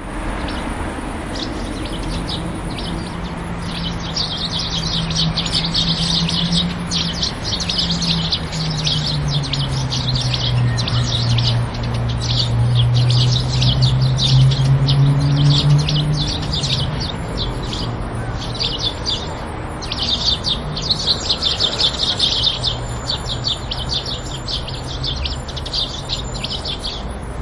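A flock of sparrows chirping and chattering in a dense, continuous chorus of short, rapid chirps that swells and thins. Beneath it runs a low hum, like a distant engine, that slides down in pitch about ten seconds in.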